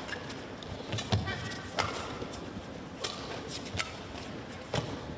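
Badminton rally in a women's doubles match: sharp cracks of rackets striking the shuttlecock, about five hits roughly a second apart, over the steady background of an indoor arena.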